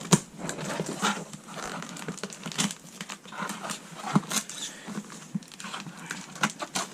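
Cardboard box and paper packaging being handled and opened: rustling and crinkling with irregular taps and knocks.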